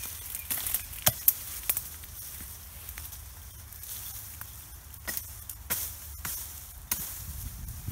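Young birch twigs and leaves rustling, with a string of sharp cracks and snaps as thin birch branches are cut with a small Universal hatchet.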